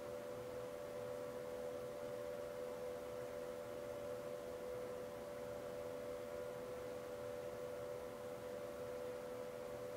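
A steady hum of two close, unchanging pitches over a faint hiss.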